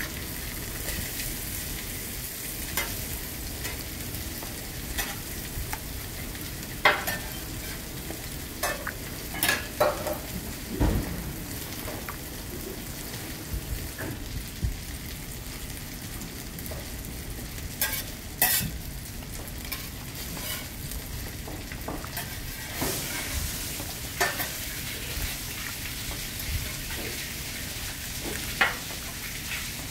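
Wet stirring and squishing of a hand turning floured pollack fillets in beaten egg in a stainless-steel bowl, with scattered sharp clicks and knocks against the bowl. A steady sizzling hiss runs underneath.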